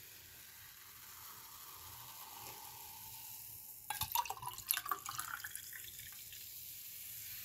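Fizzy lemon-lime soda being poured from a glass bottle into a tall glass: a faint fizzing hiss from the foaming drink, then, about four seconds in, a couple of seconds of splashing and glassy clinks as more is poured in.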